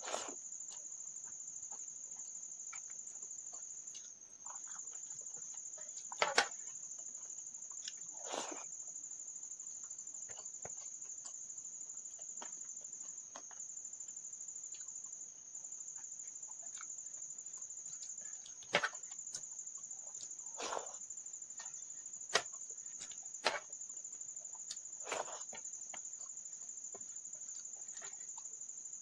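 Eating rice and dal by hand: short, scattered mouth and chewing sounds and fingers squelching food on the plate, a few seconds apart. Under them runs a steady high-pitched whine.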